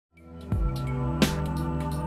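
Instrumental theme music fading in from silence: held chords over a low bass, with two beats, the second brighter, about half a second and just over a second in.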